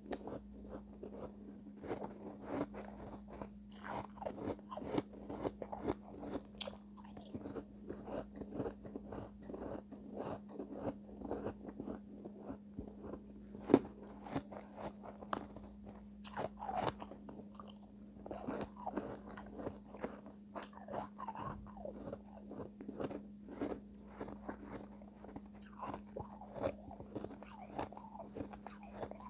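Close-miked chewing of refrozen shave ice: a steady run of small, crackly crunches as the ice is ground between the teeth, with one sharper crunch about halfway through.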